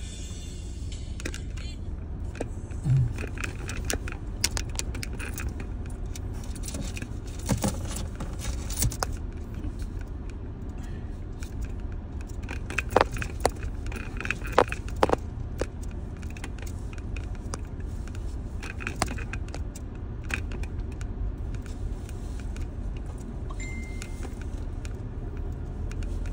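Car driving over a bumpy sand track, heard from inside the cabin: a steady low rumble with frequent light clicks and jangling rattles as loose things in the car shake.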